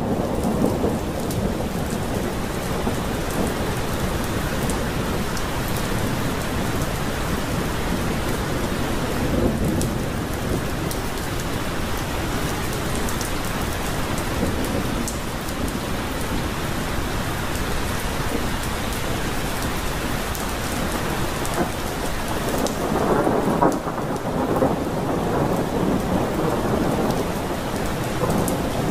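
Heavy rain falling steadily, with a rumble of thunder swelling about a third of the way in and another, louder one about three-quarters through.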